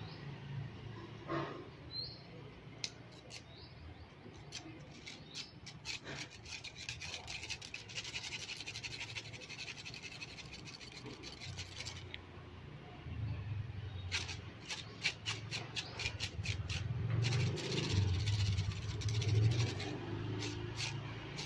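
A thin stick scraping and tapping on stone paving: runs of quick scratchy clicks, densest about eight to ten seconds in and again from about fourteen to eighteen seconds in, over a low steady hum.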